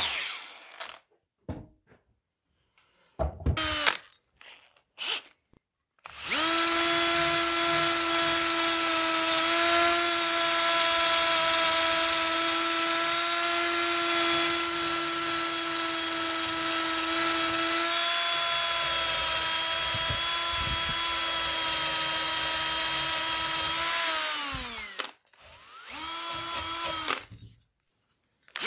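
Cordless drill spinning a wire brush against a rusty steel hatchet head to strip the rust. A few short bursts at first, then one long steady run of about eighteen seconds that winds down in pitch, and one more short spin near the end.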